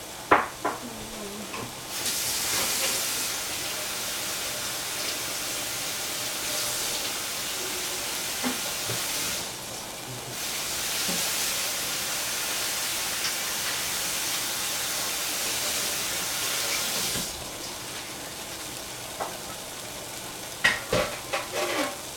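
Water running from a kitchen tap in two spells of several seconds each, shut off briefly in between, then a few sharp clicks and knocks near the end.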